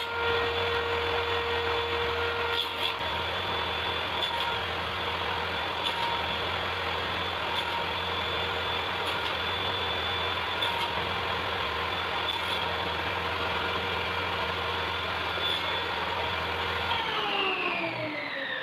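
Electric power tool motor running steadily at speed, then switched off near the end and winding down, its pitch falling.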